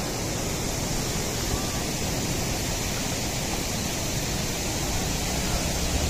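Steady rush of river water pouring through the gates of a barrage.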